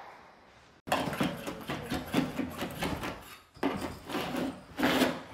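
Carpet installation at work: scattered knocks and scraping as new carpet is trimmed with a knife and tucked along a baseboard, starting abruptly about a second in after near silence.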